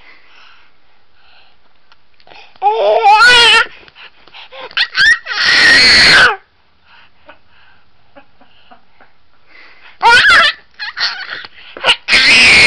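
Baby screaming with excitement: several loud, high-pitched happy shrieks and squeals separated by quiet pauses, one with a wobbling pitch.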